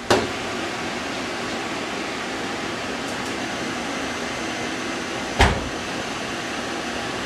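A steady background hum, with a short knock just after the start and a single louder thump about five and a half seconds in.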